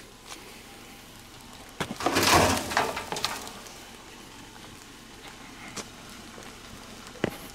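Footsteps through wet leaf litter and fallen twigs, with one louder rustling step about two seconds in and a few light clicks of debris underfoot.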